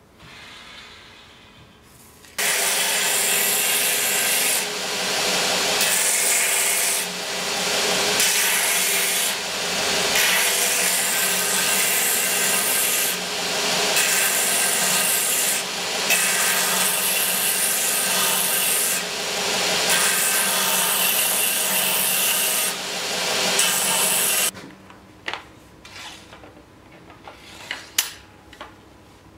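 Belt grinder running with a small metal fitting pressed against the belt at the contact wheel: a loud, steady grinding hiss over the motor's hum, dipping briefly every few seconds. It starts about two seconds in and stops sharply near the end, followed by a few light clicks and knocks.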